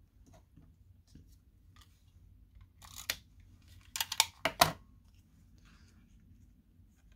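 Paper card pieces and adhesive being handled: one short crisp scrape about three seconds in, then a quick cluster of sharp scrapes and snaps around four to four and a half seconds.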